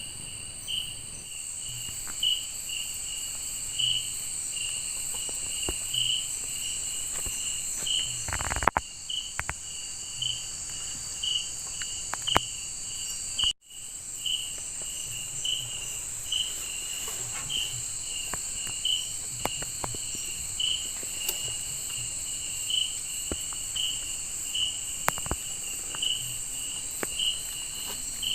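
Night insects in tropical forest: a steady, high, shrill drone with a cricket-like chirp repeating about every half second or so. A few faint knocks come through, one louder just before 9 seconds, and the sound cuts out for an instant around 13 seconds.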